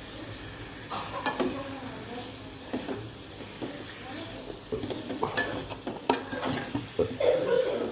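Lemon pieces sizzling in hot oil while a spatula stirs them, scraping and clicking against the metal kadai in irregular strokes.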